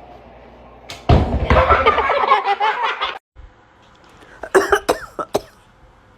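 Loud, rasping coughing that lasts about two seconds and stops abruptly, followed about four and a half seconds in by a few short, sharp coughing bursts.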